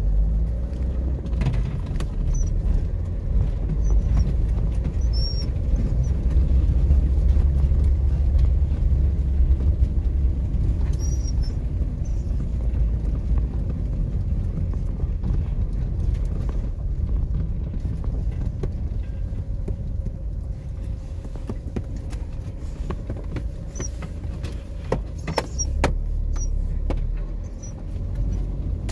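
Car driving slowly over a rutted grass farm track, heard from inside the cabin: a steady low rumble of engine and tyres, with occasional knocks and rattles from the bumps, clustered near the end.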